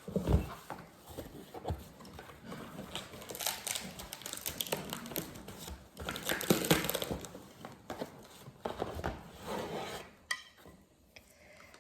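Rummaging through a subscription box: packing material rustling and crinkling in several spells, with a dull knock at the start and small clicks and clatters as items are shifted to pull out a marble cutting board.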